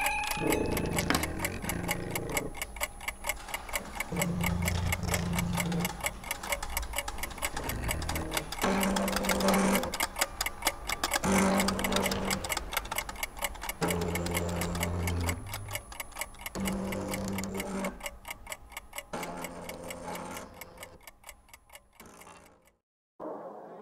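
Credits music built on a fast, even clock-like ticking over a deep bass line that moves to a new note every second or two. It fades away near the end.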